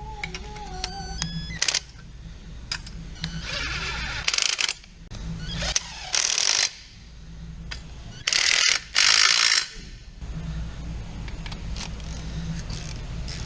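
Ratchet wrench clicking in several short bursts as bolts on the transmission bell housing are run in. A low steady hum runs underneath.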